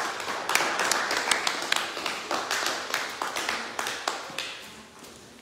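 Applause from a small group: scattered hand claps, dense at first and dying away over the last second or two.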